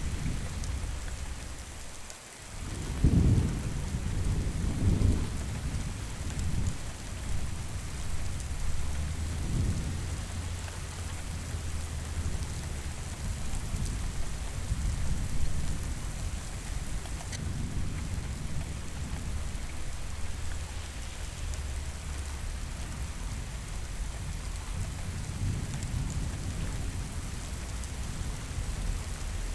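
Steady heavy rain with rolling thunder. The deepest rumble swells about three seconds in and is followed by another near five seconds, with softer rumbles later on.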